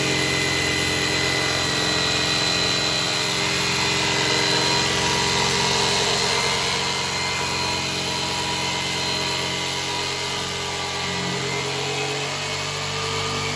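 Corded orbital jigsaw cutting through a wooden countertop, its motor running steadily under load.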